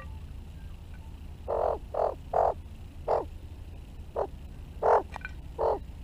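Australian magpie giving short, harsh, croaky calls: seven in an uneven run starting about a second and a half in, the loudest near the end.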